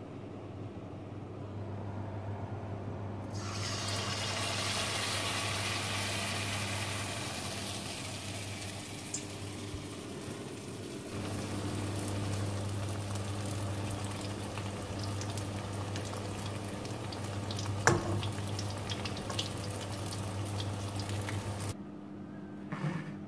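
Batter-coated stuffed tofu deep-frying in oil in a wok: a dense sizzle with scattered crackles and pops, and one sharp knock partway through, over a low steady hum. The sizzle starts a few seconds in and cuts off abruptly near the end.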